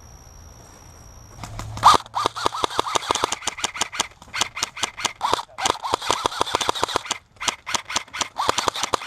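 Electric airsoft rifle firing rapid full-auto strings of shots, each shot a sharp crack with a short whir of the gearbox, starting about two seconds in and breaking off briefly a few times.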